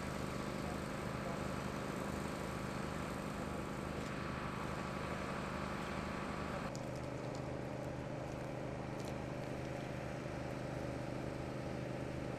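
Steady hum of an idling engine with a light hiss over it. The hiss quietens about halfway through.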